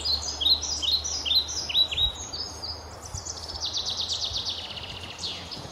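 A songbird singing: a series of short, sharp, high chirps at about three a second, then a fast trill in the second half. A low steady hum of outdoor ambience runs underneath.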